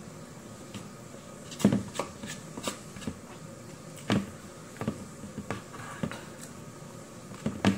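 Eating by hand: a scattering of short, sharp clicks and smacks from chewing and from fingers picking rice and pancit off a plate.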